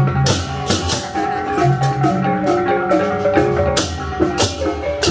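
Balinese baleganjur processional gamelan playing: clashing ceng-ceng hand cymbals over a stepping melody on tuned gongs and deep gong and drum strokes.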